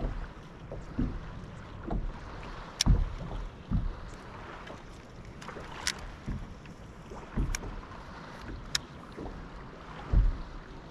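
Steady wind and water noise on a bass boat on choppy water, broken by irregular low thumps and a few sharp clicks.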